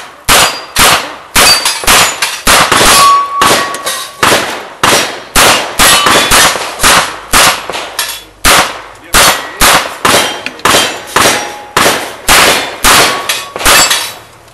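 Open-class revolver firing rapidly at steel plate targets, about two shots a second, each shot followed by the clang and ringing of a hit steel plate.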